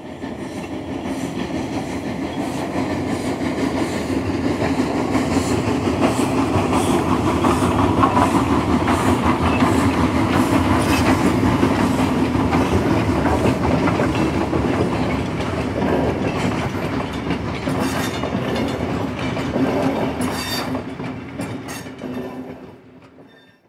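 O-gauge model train with a brass Dreyfuss Hudson locomotive running on three-rail track: a steady rumbling hum with fine clicking of wheels over the rails. It grows louder over the first several seconds, then fades away near the end.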